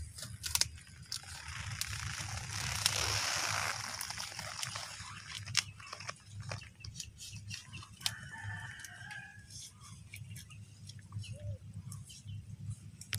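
A woven plastic sack around a durian seedling's root ball rustling and crackling with small clicks as it is handled and stitched shut with string, the rustle loudest about two to four seconds in. A rooster crows faintly about eight seconds in.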